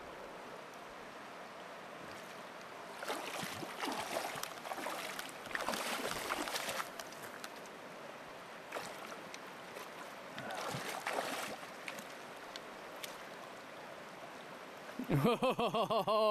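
Shallow river running steadily over stones, with splashing as a hooked fish thrashes in the shallows while it is being netted, loudest a few seconds in and again around the middle. Near the end there is a short, loud wavering pitched sound.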